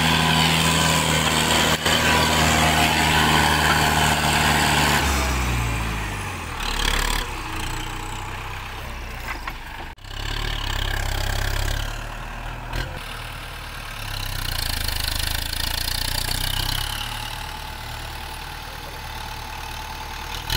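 Kubota M108S tractor's four-cylinder diesel engine running hard at high revs while pulling a loaded trailer through soft, rain-soaked mud. About five seconds in, the revs drop away. After a cut, the engine runs at lower revs that rise and fall.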